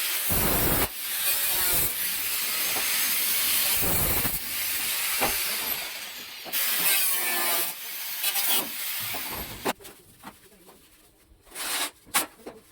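Steelwork on a rooftop frame: a harsh hissing rasp in several long stretches, then a few scattered knocks and clicks near the end.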